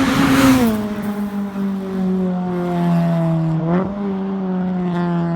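A 2008 Honda Civic Si's K20Z3 four-cylinder engine and exhaust running loud at high revs. In the first half-second there is a burst of noise and the pitch drops. Then the note holds steady and sinks slowly, with a brief blip in the revs about two-thirds through.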